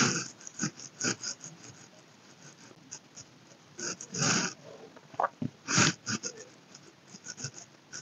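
A person's breathing close to a clip-on microphone, with small clicks and rustles scattered through; a longer breath about four seconds in.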